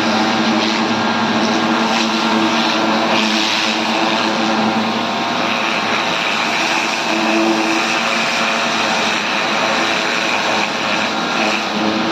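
Pressure washer running steadily, with a continuous engine-like drone and the hiss of the spray, while washing a 500 kVA alternator.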